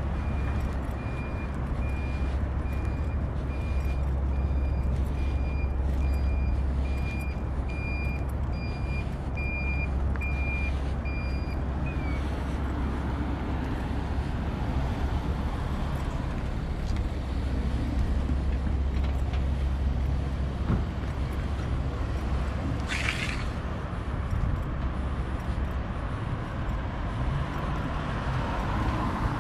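Street traffic rumbling, with an electronic warning beeper giving a steady high beep about once a second for the first twelve seconds or so. A short hiss comes about two-thirds of the way through.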